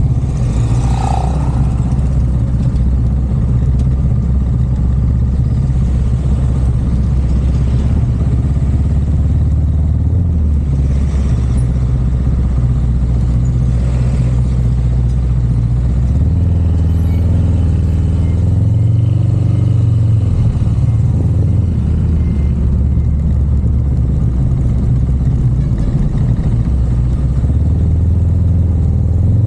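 A car being driven: a steady low engine and road rumble whose pitch shifts about ten seconds in and again about sixteen seconds in.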